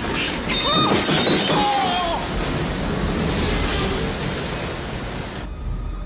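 Film sound effects of a ship's interior being smashed: loud crashing and shattering of metal and debris over a dense noisy din. About five and a half seconds in the din cuts off suddenly, leaving a low rumble.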